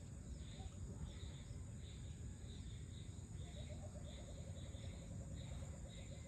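Evening insect chorus: crickets chirping in short repeated pulses over a steady high insect drone, with a low background rumble. About halfway through, an animal starts a rapid run of short, low repeated calls.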